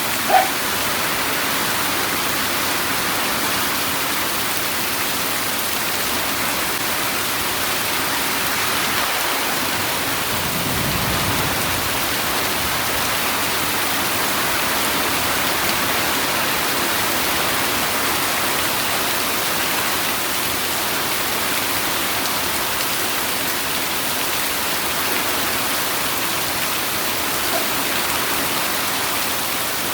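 Steady rain falling, an even unbroken hiss. There is a short sharp drip sound less than a second in and a brief faint low rumble about ten seconds in.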